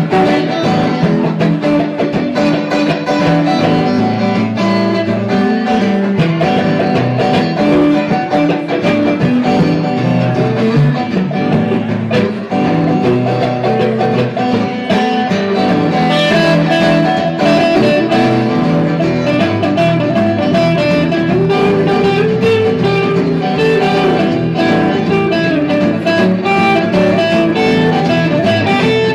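Live band playing an instrumental number, guitar-led with a steady beat.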